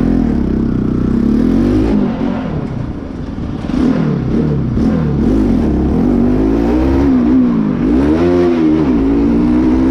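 Modified Bajaj Pulsar NS200's single-cylinder engine under way, its note rising and falling over and over as the throttle is opened and closed, with a deeper drop and climb near the end.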